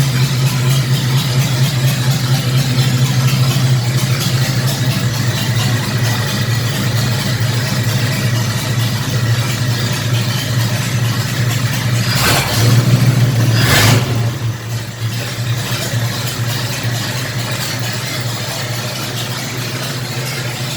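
ZIS-150 truck's straight-six petrol engine running steadily, with two sharp knocks about twelve and fourteen seconds in, after which it runs a little quieter.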